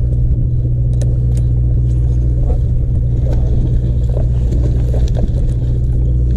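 Boat engine running with a steady low rumble, heard from the deck, with a few light clicks over it.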